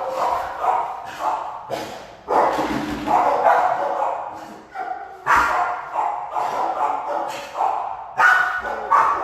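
Dogs in shelter kennels barking and yipping repeatedly, with loud barks coming in quick succession.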